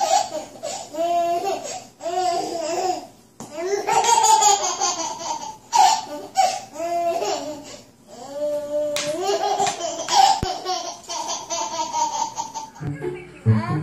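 A baby laughing hard in several long, high-pitched bouts with short breaks between, stopping shortly before the end.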